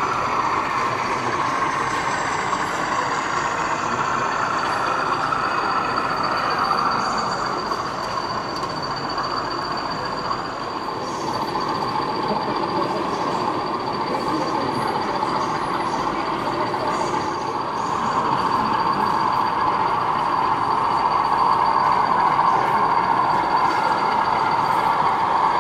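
Sound-fitted OO gauge model diesel locomotive's engine sound running steadily through its speaker, with a thin high whine held through most of it; it grows louder about two-thirds of the way through.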